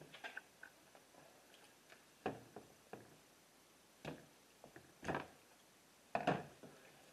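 Gloved hands moving bushings from the stock shifter onto a Cobb short shifter: a handful of faint clicks and scuffs of small metal and rubber parts, spaced about a second apart, the loudest near the end.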